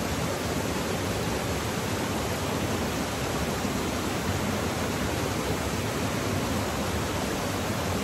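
Steady rush of a waterfall and the river running over rocks below it.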